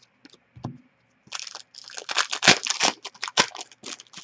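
A stack of hockey trading cards being handled and shuffled by hand. Cards slide and flick against each other in a quick run of dry rustles and snaps, sparse at first and dense from about a second in.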